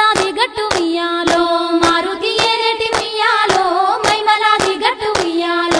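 A Bathukamma folk song sung to a steady beat of hand claps, about two claps a second.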